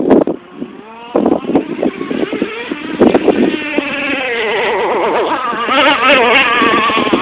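Traxxas Revo 3.3 RC truck's small two-stroke nitro engine revving as it drives, its buzzing note climbing and dropping in pitch with the throttle, with a sharp rev about three seconds in.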